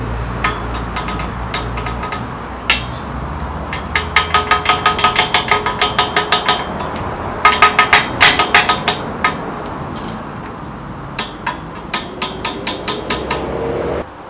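Quick runs of light hammer taps on a steel crane frame, about five or six a second, each with a short metallic ring. There are three runs, with scattered single taps between them.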